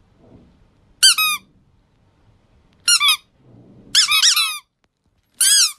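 Squeaky toy squeezed in four short bursts, each of two or more quick high squeaks that rise and then fall in pitch.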